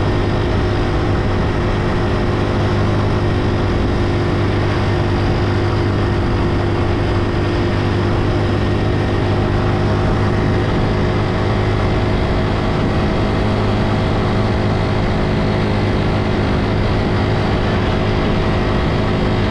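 Engine of a motor tricycle, a motorcycle with a sidecar, running steadily while under way. It makes a constant low drone with road noise.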